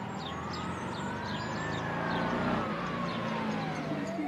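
Emergency siren on a paramedic's motorcycle, in a slow wail: the pitch rises for about two seconds, falls back, then starts climbing again near the end, growing slightly louder over a low engine hum.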